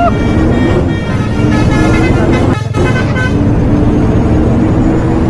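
Basuri 'telolet' multi-tone bus horn playing a tune of short stepped notes, with a brief break about two and a half seconds in, over a steady low engine rumble.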